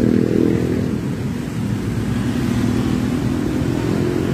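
Motor vehicle engine running close by, a steady low rumble with a pitched hum that is strongest in the first second, then eases.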